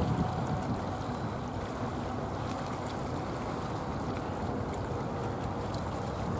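Jet airliner engines running, heard as a steady rumble with a faint high whine over it.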